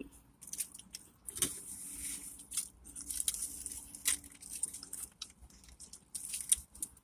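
Close-up eating sounds: chewing, with a string of short crackles and rustles from the food packaging.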